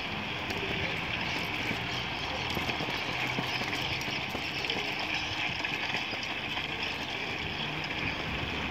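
Steady rushing noise of a bicycle ride: wind over the microphone and bicycle tyres rolling on asphalt, with a few faint clicks.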